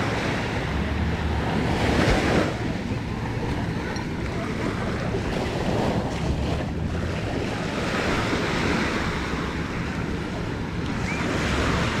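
Small waves washing up on a sandy shore in slow surges, the strongest about two seconds in, with wind rumbling on the microphone.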